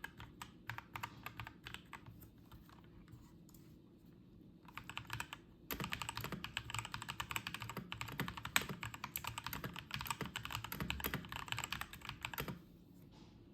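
Typing on a Redragon Fizz K617 mechanical keyboard fitted with Akko Matcha Green linear switches. Scattered keystrokes give way, after a short pause, to fast continuous typing about six seconds in, which stops shortly before the end.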